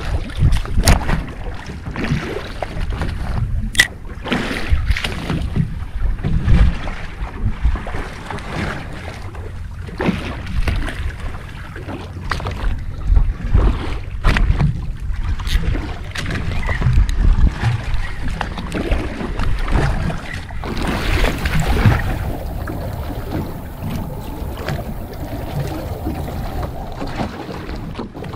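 Wind buffeting the microphone and water slapping against a small boat's hull, with scattered sharp clicks and knocks while a spinning reel is cranked to bring in a hooked fish. The sound turns steadier about three quarters of the way through.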